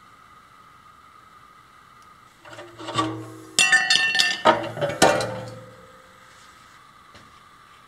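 Thin-walled metal tube being handled on a concrete floor, clanging and ringing: a run of sharp metallic strikes over about three seconds, starting a couple of seconds in, each leaving a bell-like ring.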